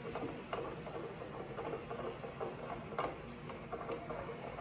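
Light clicks and taps of kitchen items being handled, about two a second at irregular spacing, over a faint steady hum.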